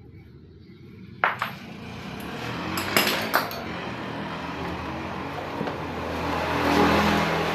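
Sharp metallic clinks of tools on metal engine parts, a few separate strikes, over a rising mechanical noise with a low hum that swells near the end, like a vehicle engine running.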